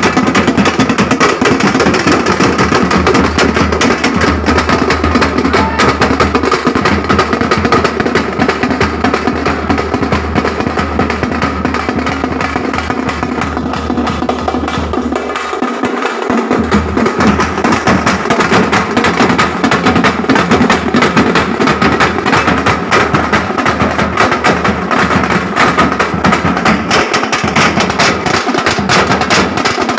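A group of drummers beating large double-headed drums with sticks, playing a fast, dense, continuous rhythm. The deep drum tones drop out for about a second around the middle.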